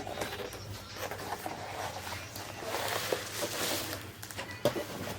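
Handling and opening the cardboard packaging of a small portable blender: rustling and scraping with scattered light clicks and one sharper knock near the end.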